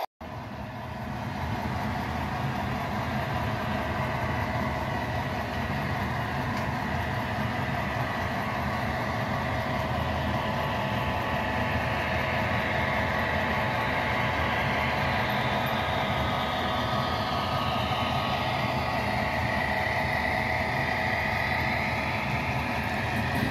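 Model diesel freight train running along the track: a steady engine hum with the rolling rumble of the cars' wheels on the rails. It swells in during the first second or two and then holds steady.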